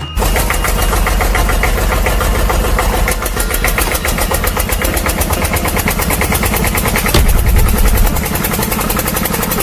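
An engine running steadily, with a fast even chatter over a heavy low rumble. It starts abruptly, and the rumble swells briefly about three-quarters of the way through.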